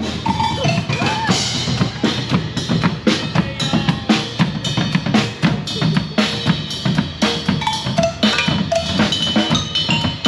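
A live percussion troupe drumming a fast, driving groove, with deep bass-drum hits under sharp snare and rim strikes.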